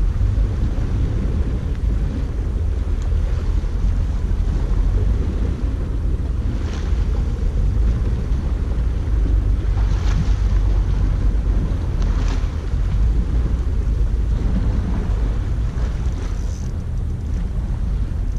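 Steady rumble of wind buffeting the microphone over the sound of the sea, with a few faint ticks.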